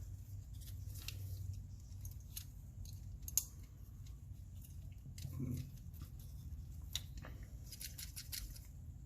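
Light scattered clicks and taps of a small diecast toy car's separated metal body and base being handled, with a sharper click about three and a half seconds in and a quick run of clicks near the end, over a low steady hum.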